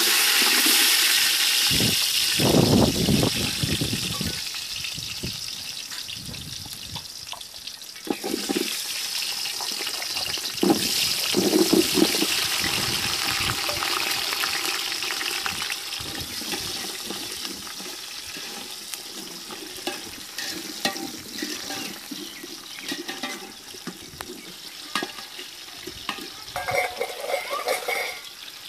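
Shallots and garlic cloves dropped into hot oil in an aluminium pot, sizzling: the sizzle starts suddenly and loud, swells again a few seconds later, then slowly settles to a quieter sizzle. A few light clinks near the end.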